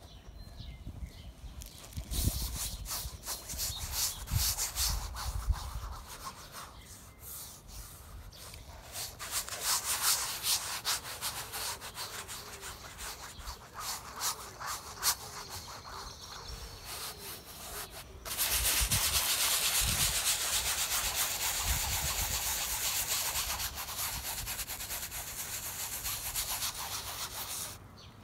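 Paintbrush bristles rubbing across a stretched canvas, blending wet paint in irregular strokes. About 18 seconds in the rubbing turns louder and steady, then cuts off suddenly near the end.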